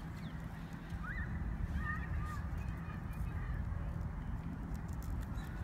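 Faint honking calls of geese, a few short ones about one to two and a half seconds in, over a steady low rumble.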